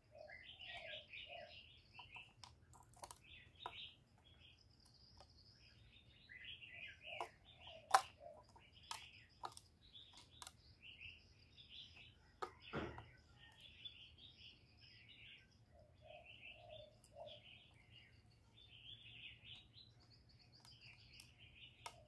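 Faint chirping of small birds in quick bursts, with a few short low notes and scattered sharp clicks.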